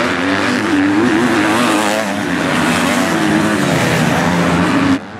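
MX2 motocross bike engines racing on the track, their pitch rising and falling as the riders work the throttle. The sound cuts off suddenly near the end.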